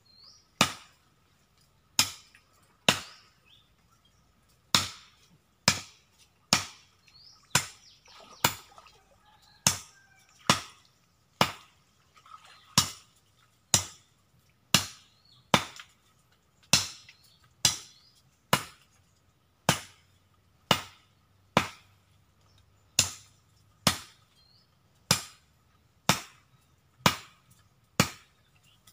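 Machete chopping into wood, one sharp chop about every second.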